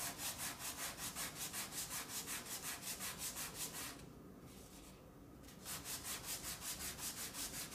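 Fine 240-grit sandpaper wrapped around a wooden sanding block, rubbed quickly back and forth over the flat face of a small wooden board, about five strokes a second. The strokes stop for about a second and a half past the middle, then resume.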